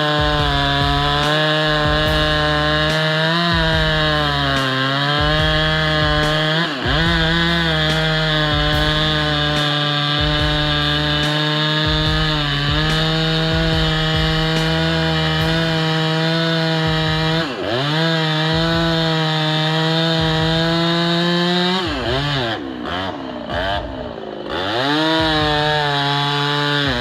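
Chainsaw running at high revs while cutting wood, its pitch dipping sharply a few times, most deeply and unsteadily near the end, before climbing back up.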